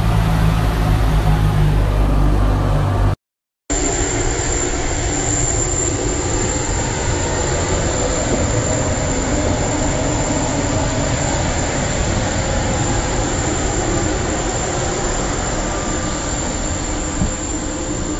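A vehicle's engine hum heard from inside the cabin, cut off about three seconds in; after half a second of silence, the steady loud rush of a private jet's engines with a thin high whine.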